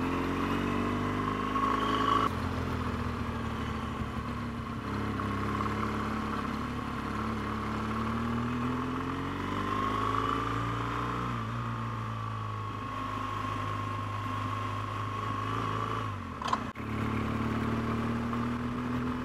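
BMW R1200GS flat-twin motorcycle engine running under way, its pitch rising and falling as the rider opens and closes the throttle through the bends. Near the end the sound drops out briefly with a sharp click.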